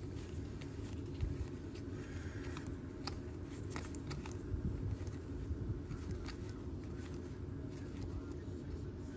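Baseball trading cards being handled and flipped through: scattered soft clicks and paper-on-paper slides, with a faint rustle about two seconds in, over a steady low background hum.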